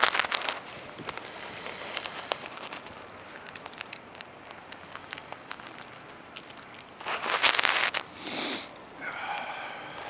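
Snowstorm noise on the microphone: a steady crackle of small clicks from blowing snow, with louder rushing gusts at the very start and about seven seconds in. A brief pitched sound comes near the end.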